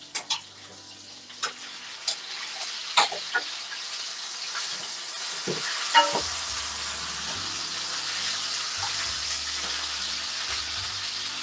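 Chicken sizzling in a frying pan as it is turned with tongs, the sizzle growing louder over the first few seconds and then holding steady. Sharp clicks of the tongs against the pan, the loudest about six seconds in.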